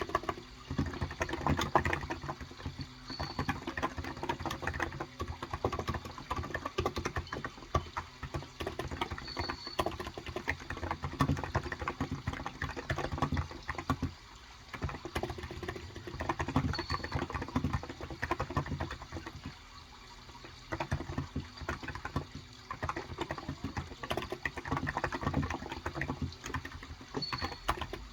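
Continuous typing on a Cox Endeavor electrostatic capacitive (무접점) keyboard with light 35 g keys, quick runs of soft keystrokes with brief pauses. Behind it runs a steady sound of running water, with a short high bird chirp now and then.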